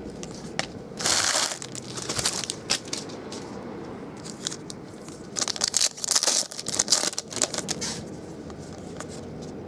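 Crinkling and tearing of a foil trading-card pack wrapper, together with cards being handled, in two crackly bursts: one about a second in and a longer one from about five to eight seconds in.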